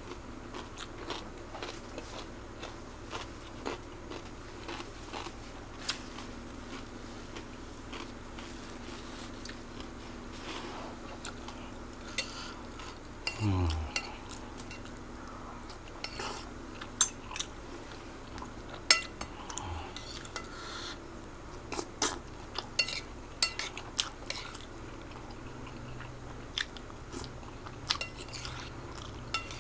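Close-up eating sounds from a plate of Aceh fried noodles: chewing, with scattered sharp clinks of cutlery against the plate that come more often in the second half.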